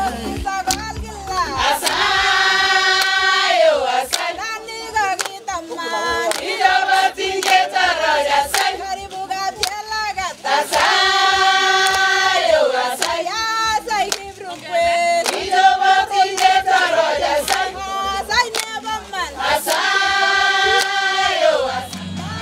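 A group of voices singing a song in long held phrases, with hand clapping throughout.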